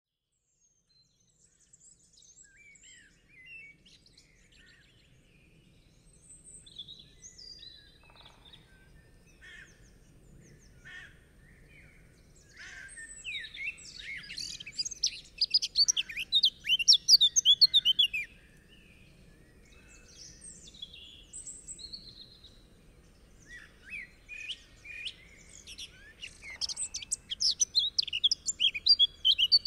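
Several songbirds singing and chirping at once, a chorus of quick trills and short whistled notes. It starts faint and comes on strongest in busy stretches around the middle and again near the end.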